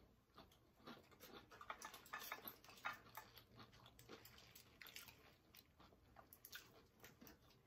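Faint close-up chewing of an air-fried onion ring: small crunches and mouth clicks, busiest about one to three seconds in, then sparser.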